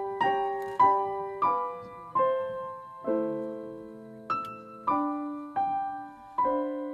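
Slow, gentle piano music: single notes and chords struck about every half second to second, each ringing and fading before the next.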